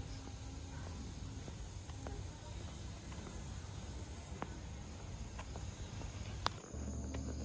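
Faint outdoor ambience with insects chirping and a few light clicks.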